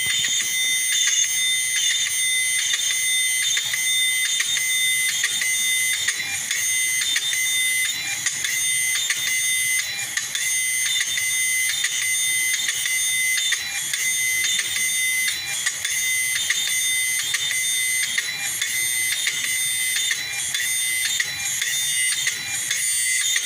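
R.Holmes CFI-180PE-AT-2 unit running on its repaired power supply: a steady high-pitched whine made of several tones, with rapid irregular clicking.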